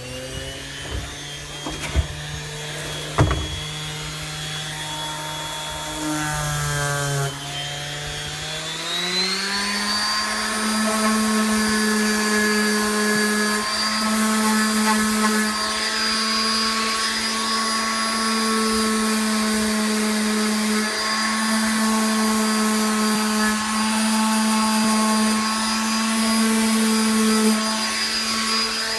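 Handheld electric power tool running continuously, its motor whine stepping up to a higher speed about eight seconds in and then holding steady. Two sharp knocks sound near the start.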